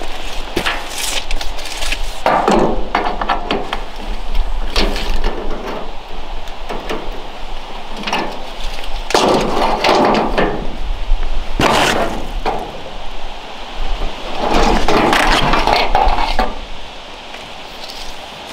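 Corrugated steel roof panel being cut and handled: irregular bursts of crunching, clattering sheet metal that stop shortly before the end.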